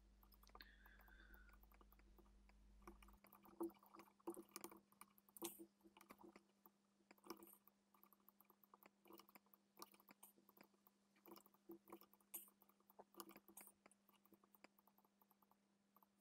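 Near silence with faint, irregular clicks of a computer mouse, over a low steady electrical hum.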